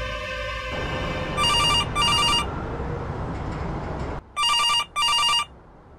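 A telephone ringing in a double-ring pattern: two short electronic rings close together about a second and a half in, and another pair about four seconds in. Before the rings, a low music drone fades out near the start, and a steady background noise runs under the first pair and cuts off just before the second.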